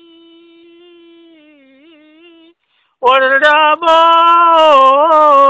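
A solo voice singing a slow, unaccompanied-sounding song: a quiet held note wavers and fades out, and after a short silence a loud new phrase begins about three seconds in, with bends in pitch.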